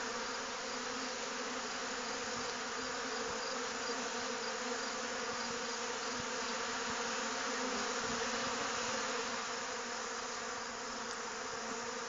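A dense crowd of honey bees buzzing steadily at a hive entrance: a robbing frenzy, with bees from other colonies raiding the hive during a nectar dearth.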